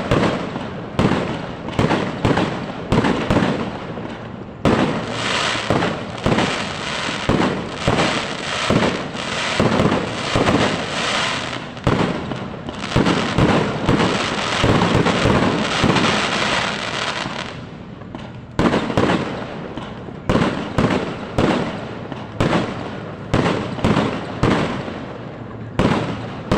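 Fireworks display: aerial shells bursting in quick succession, about one or two bangs a second. From about five seconds in they merge into a dense, continuous barrage for some twelve seconds, then separate bangs resume.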